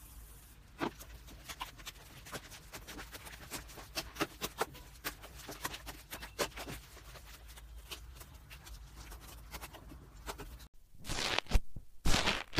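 Hand kneading and pressing white foamy slime, with many irregular sticky clicks and small pops. Near the end come louder bursts of crackling as fingers poke and squeeze bubbly purple slime.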